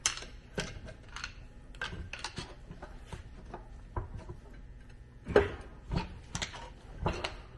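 Irregular metal clicks and clanks of gears and parts being shifted and pried inside a tractor transmission case, with one louder clank about five seconds in.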